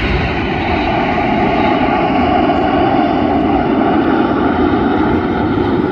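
Steady jet noise from a formation of Red Arrows BAE Hawk jets flying past during a split manoeuvre.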